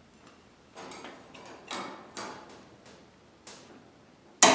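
Light clicks and metallic taps of wire and long-reach vise grips being handled against thin aluminum sheet, then near the end one sharp loud snap as the vise grips lock down on the 1 mm aluminum panels, which ring on with a fading tone.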